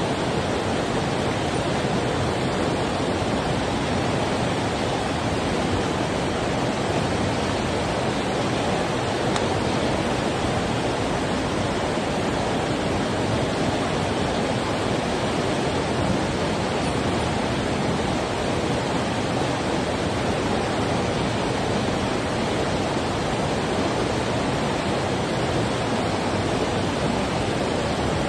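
Steady rush of a fast mountain stream, an even noise that does not change.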